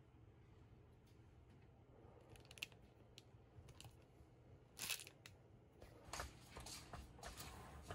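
Near silence: quiet room tone with a few faint clicks and rustles, the loudest about five seconds in and several more in the last two seconds.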